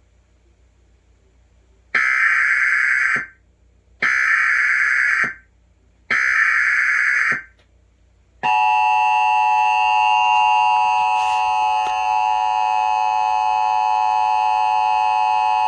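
Emergency Alert System tones on a TV broadcast: three SAME header data bursts of about a second each, two seconds apart, then the steady two-tone EAS attention signal (853 and 960 Hz) starting about eight seconds in. It is the header of a National Weather Service severe thunderstorm warning.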